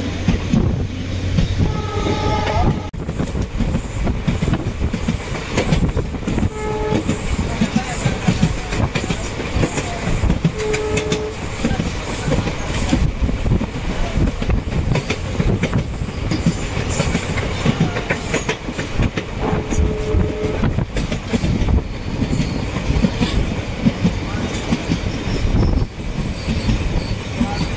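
Passenger train running at speed, heard from the open doorway of a coach: wheels clattering over the rails with a steady rush of wind and running noise, and a few brief tones now and then.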